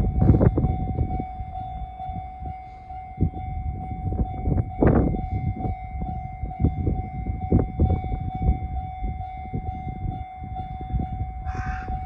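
Japanese level-crossing warning alarm ringing steadily, with strong wind buffeting the microphone in gusts. A crow caws near the end.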